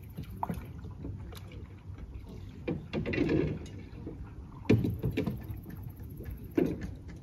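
Canoe paddles dipping and splashing in calm lake water, a few separate strokes standing out over a low steady background.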